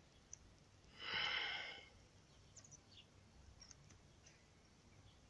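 A person's breath or sigh, a short hissing exhale about a second in that lasts under a second. Otherwise only low background hiss, with a few faint clicks later.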